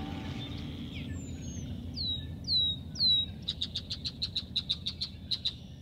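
A bird calling: three falling whistled notes about two to three seconds in, then a quick run of about a dozen short notes, roughly six a second, stopping just before the end. A faint low rumble fades underneath.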